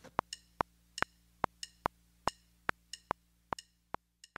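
Sharp, short clicks with a brief ring, in an uneven rhythm of about two or three a second, stopping at the end.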